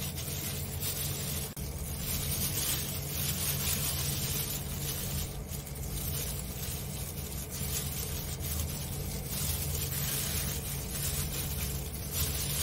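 Disposable plastic gloves rustling and crinkling as hands tear poached chicken meat off the bone, over a steady low hum.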